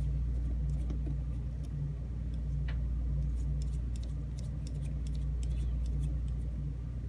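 A steady low hum, pulsing about twice a second, with a few faint metallic clicks from small lock-cylinder parts and screws being handled.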